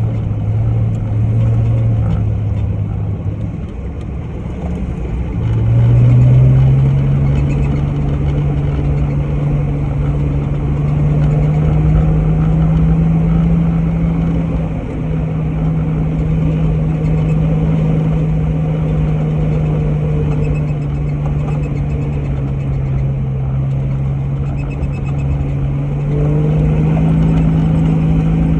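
Off-road 4x4's engine running while driving, over a low rumble of tyres and wind. The engine note rises sharply about five or six seconds in as it accelerates, then holds fairly steady.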